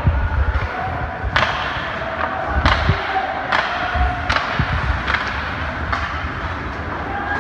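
Ice hockey play in an arena: sharp clacks of sticks on the puck and the puck against the boards, about one hit a second at uneven spacing, over the low rumble of the rink.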